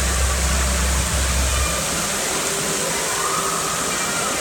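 Waterpark pool ambience: a steady rush of running and splashing water with a faint hubbub of distant voices. A low hum runs underneath and stops about a second and a half in.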